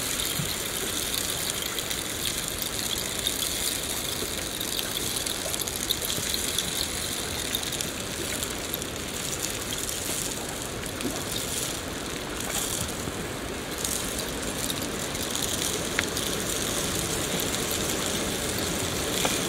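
Steady heavy rain falling and splashing, an even hiss with a few sharper drop ticks here and there.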